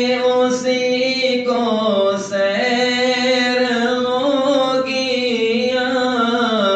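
A voice singing a devotional Sufi song (manqabat) in long, drawn-out notes that slide slowly from one pitch to the next.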